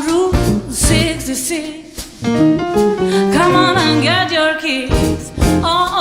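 A live band playing a song with a lead singer holding notes with vibrato, over instruments and drum hits.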